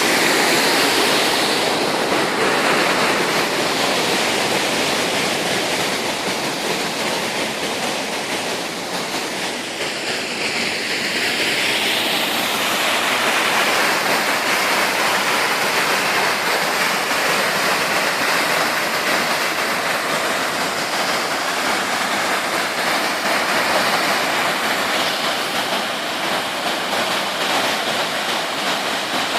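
Waterfall: a steady, loud rush of falling water, swelling slightly about a third of the way in.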